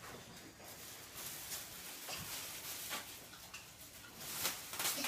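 Faint scattered clicks and knocks over a low hiss, about half a dozen of them, the loudest near the end.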